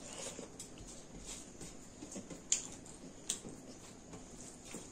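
Close-up eating sounds from someone eating rice and curry by hand: chewing and wet mouth noises, with fingers mixing food on a metal plate. Small clicks throughout, and two sharper ones about two and a half and three and a half seconds in.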